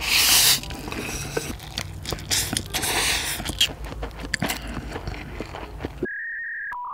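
A person slurping a huge mouthful of spicy instant noodles, loudest in the first half-second, then wet chewing and mouth clicks. About six seconds in, the eating sounds cut off for a steady electronic beep that steps down to a lower tone near the end.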